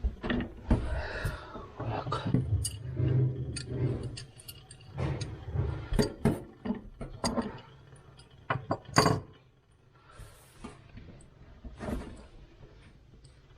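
Metal tools clinking and knocking against the fittings of an old faucet as its seized mounting nut is worked loose from under the sink: scattered sharp clicks and knocks, the loudest about nine seconds in, thinning out and going quieter near the end.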